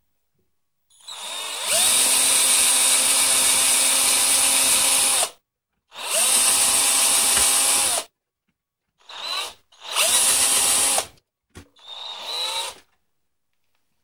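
Handheld power drill with a twist bit drilling out a pop rivet in a PC case's sheet-metal frame, run in bursts: one long run of about four seconds, a shorter one, then three brief pulses, the motor's whine rising at the start of each.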